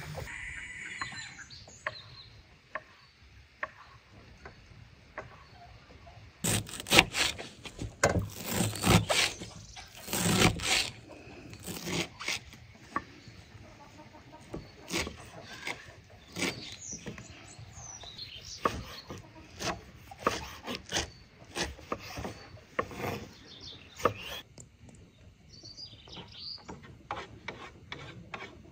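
A knife chopping fresh leafy herbs on a wooden cutting board: quick, irregular strikes, densest and loudest in the first half of the chopping, thinning out later.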